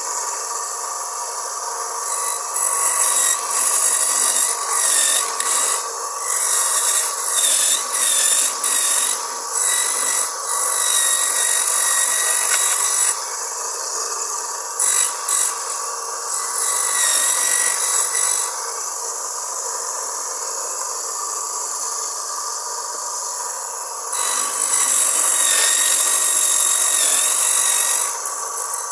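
Homemade coconut grater driven by a salvaged water-pump motor, running steadily while coconut is pressed against the spinning grater drum. Three long spells of rasping grating, the first choppy, are separated by short gaps where only the motor is heard.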